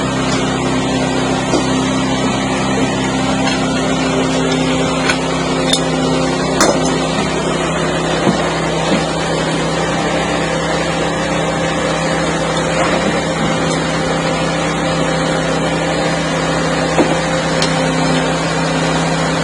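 Engine of a helical pier installation rig's power unit running steadily, with a few sharp metal knocks as an extension section is fitted.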